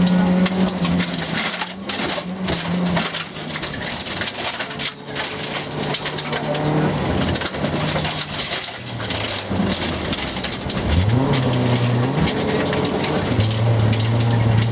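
Volvo 940 rally car heard from inside the cabin at full stage pace on gravel: the engine note drops and climbs through lifts and gear changes, rising again about eleven seconds in, over a constant crackle of gravel stones hitting the underbody and wheel arches.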